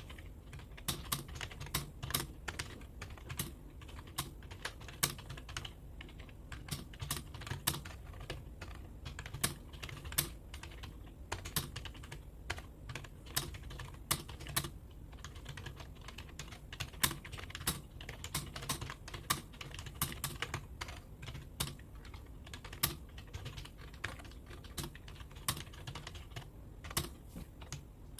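Steady, continuous typing on a computer keyboard: an uneven stream of key clicks, several a second, with some keystrokes louder than others.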